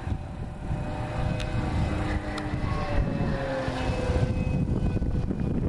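Electric radio-controlled model airplane (Seagull Models Shoestring) flying past, its motor and propeller a thin steady whine that slides down in pitch about three to four seconds in. A low rumble runs underneath.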